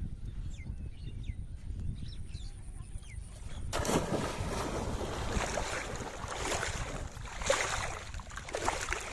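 Low outdoor rumble with a few faint bird chirps; then, about four seconds in, an abrupt switch to louder splashing and sloshing water with irregular splashes.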